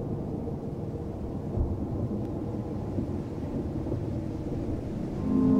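Low rolling rumble of thunder, with a heavier thud about one and a half seconds in. Near the end, sustained ambient music tones like a singing bowl come in.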